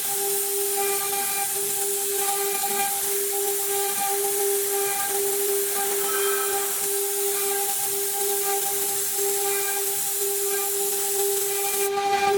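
Wood CNC router spindle running at speed: a steady high whine with a constant hiss. Fainter higher tones come and go every second or so.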